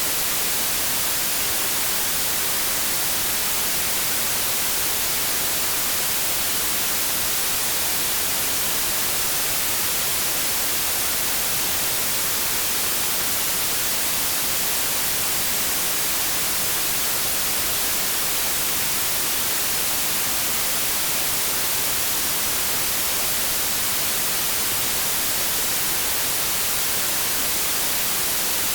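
Continuous white noise: a steady, even hiss, strongest in the highs, with no change at all.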